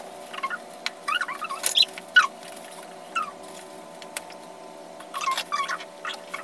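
Irregular short squeaks of clear plastic gloves rubbing on a plastic hair-dye bottle, some sliding down in pitch, over a steady hum.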